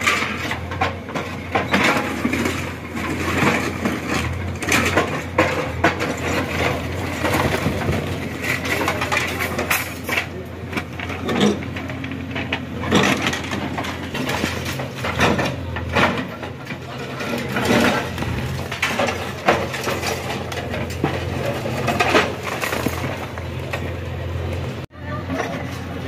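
JCB backhoe loader's diesel engine running steadily while its bucket breaks down a brick wall, with repeated knocks and crashes of falling brick and masonry.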